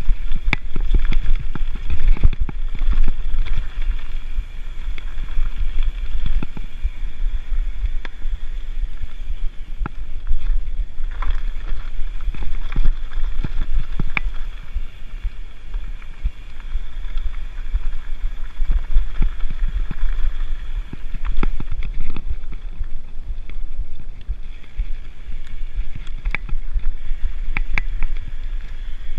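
Mountain bike descending a rough dirt singletrack: wind buffeting the action camera's microphone with a steady low rumble, and frequent clicks and rattles from the bike jolting over rocks and roots.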